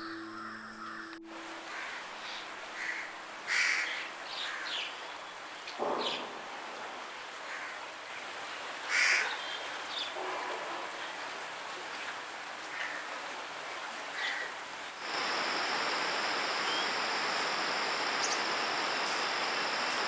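Crows cawing now and then over outdoor background. A short bit of music ends about a second in, and about three-quarters of the way through a louder steady hiss with a thin high tone takes over.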